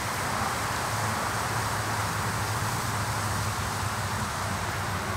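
Black Cat jumbo smoke bomb burning with a steady hiss, with a low rumble underneath.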